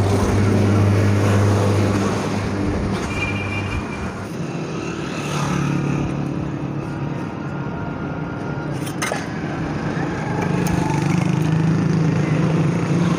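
Street traffic: a vehicle engine hums steadily, fading about four seconds in before another engine hum comes up, over a general street noise, with a sharp click about nine seconds in.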